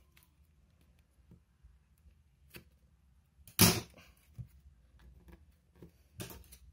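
Scissors set down on a tabletop with a sharp clatter about halfway through, then handled again with a smaller clatter near the end, among light clicks from handling a cardboard phone box.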